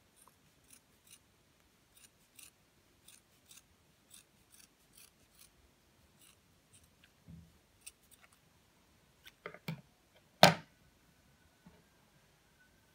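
Scissors snipping through folded velvet fabric in a series of short cuts, followed by a few louder knocks, the loudest about ten seconds in.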